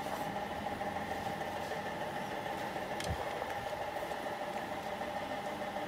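A steady mechanical hum from a machine running, with one brief click about three seconds in.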